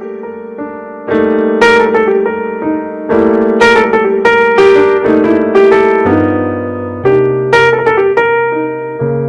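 Background piano music: struck chords and notes about once a second, each fading, with a lower bass part coming in about six seconds in.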